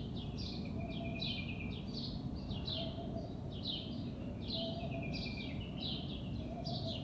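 Birds chirping in the background: a steady run of short chirps, about two a second, each falling in pitch, over a low, even hum of outdoor ambient noise.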